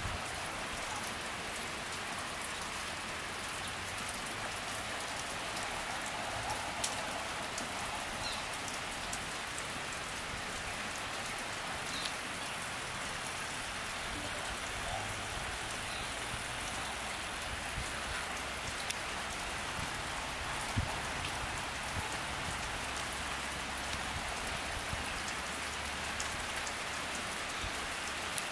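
Steady rain falling, with a few sharper single drops ticking now and then.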